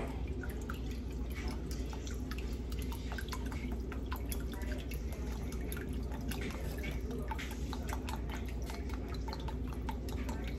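A pot on the stove boiling hard, really bubbling, with a constant patter of small irregular pops over a steady low hum.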